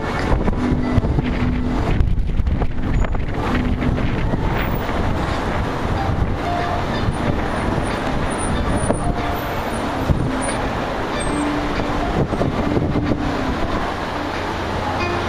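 Steady, dense traffic noise of a busy city street, with brief faint tones here and there.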